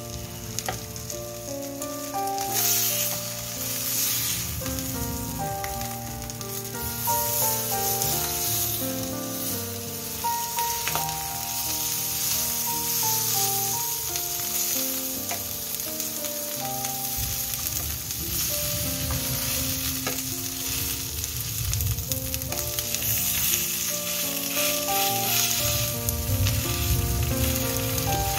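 Saba (mackerel) fillets sizzling steadily as they fry in oil in a nonstick pan, with an instrumental melody playing in the background.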